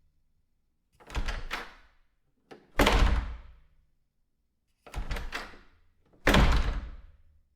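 A door worked twice in a row. Each time a short rattle of latch clicks is followed a moment later by a loud thud of the door shutting, which dies away over about a second.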